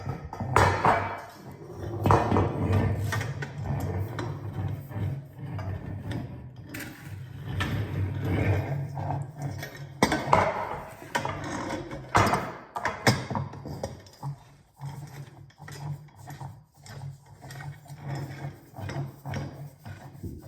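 Clothing rack parts being handled and fitted together: irregular knocks, clicks and clinks over a steady low hum.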